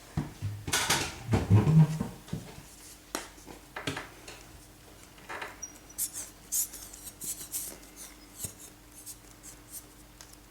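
Close handling noises as model-making materials are worked with: a busy cluster of clicks, taps and rustles in the first two seconds, then scattered lighter clicks and ticks, over a faint steady hum.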